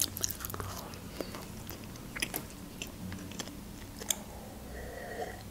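Close-miked chewing of a bite of hot dog, with soft wet mouth clicks, then sips of juice from a glass near the end.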